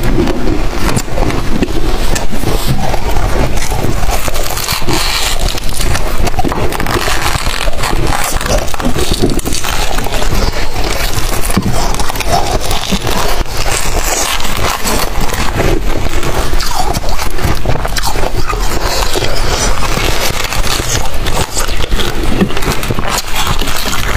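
Freezer frost crunching and crackling as it is bitten, chewed and broken apart by hand, a dense continuous crackle.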